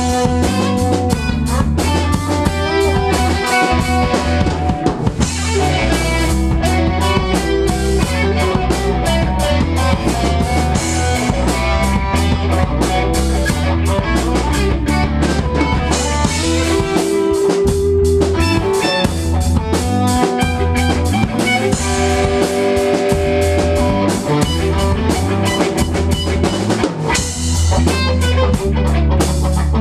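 A band playing live instrumental music: electric bass, drum kit and guitar, with a steady beat and a strong bass line.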